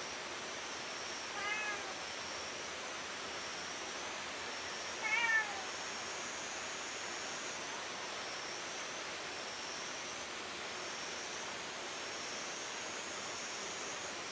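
Cat meowing twice, two short calls about four seconds apart, the second louder.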